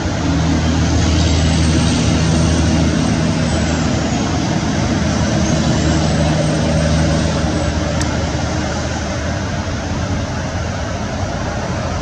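Steady low engine drone over a continuous wash of traffic noise.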